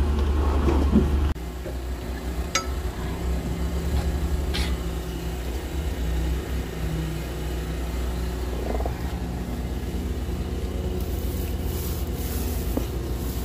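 Steady low rumble, with a couple of light clicks; near the end, a soft repeated rasping of a paint roller working paint onto a metal rudder.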